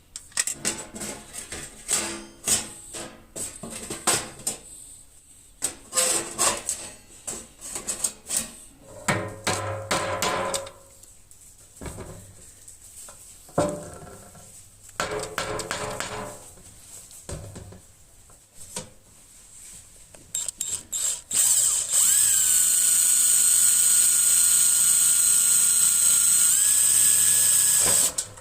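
Clicks and knocks of tools and parts being handled, then about three-quarters of the way in an electric drill runs steadily for about six seconds, its pitch stepping up shortly before it stops.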